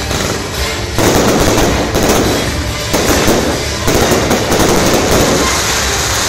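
Aerial fireworks bursting overhead. A loud burst comes about a second in, followed by dense, continuous crackling with fresh bursts roughly every second.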